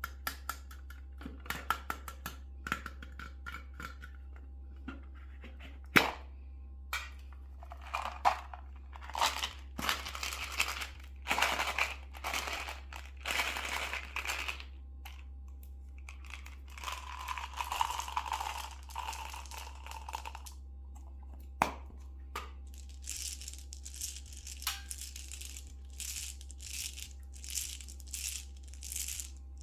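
Candy packaging crinkling and being torn open, with scattered sharp clicks and taps from the candy and its wrappers. The loudest is a single sharp knock about six seconds in, and quick clicks come thick together near the end.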